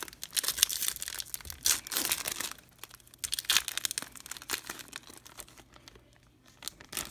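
A trading-card pack wrapper being torn open and crinkled, in a run of crackly bursts over the first four seconds or so. The handling then goes quieter, with one more short crinkle near the end.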